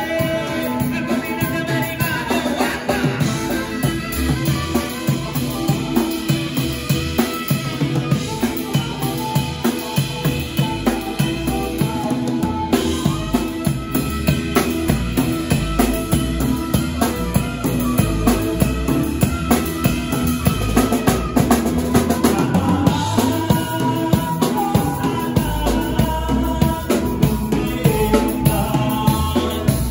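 Live band playing a fast tune, with a drum kit keeping a steady, driving beat of snare, bass drum and cymbals under saxophone and acoustic guitar.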